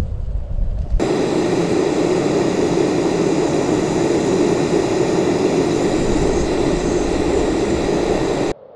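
Portable gas stove burner running at full flame under a stainless-steel coil heater attachment: a steady, loud hiss that starts suddenly about a second in and cuts off shortly before the end. A low rumble comes before it.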